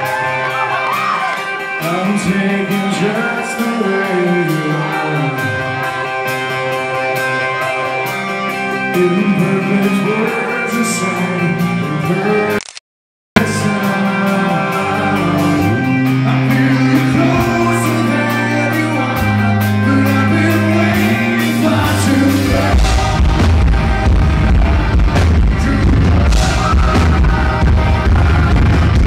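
Live rock band with a male lead vocalist singing, recorded from the audience, the sound distorted by very heavy bass and drums. The audio cuts out for about half a second partway through, and the bass and drums come in much heavier near the end.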